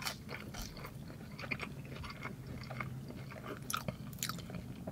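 A person chewing French fries close to the microphone, with quiet, irregular small clicks of the mouth. The fries are soft with only a slight crisp on the outside.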